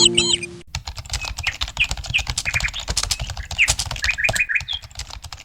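A rapid, irregular run of light clicks like typing on a keyboard, with short bird chirps over it.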